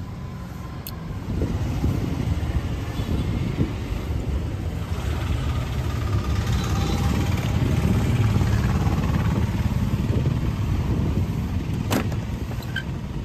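A motor vehicle engine running close by, growing louder toward the middle and easing off again. A sharp click sounds near the end.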